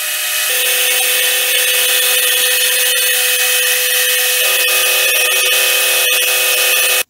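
Milling machine's end mill cutting along the edge of a metal plate held in a vise: a steady, loud, high-pitched cutting noise over the spindle's steady tone, building up in the first half second and stopping suddenly near the end.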